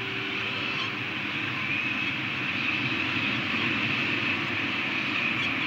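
Steady rushing background noise on an outdoor nest-cam microphone, with faint, thin, high wavering calls on top: downy peregrine falcon chicks begging as the adult feeds them.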